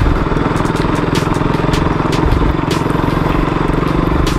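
Single-cylinder engine of a KTM RC sport bike running steadily at low speed on a rocky dirt trail, with frequent short clicks and knocks over the loose stones.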